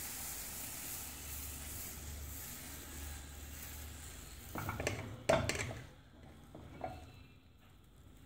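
Baghrir batter sizzling faintly in a nonstick frying pan as it cooks and its surface opens into holes. About five seconds in comes a brief clatter of a kitchen utensil, the loudest sound, after which the sizzle is much fainter.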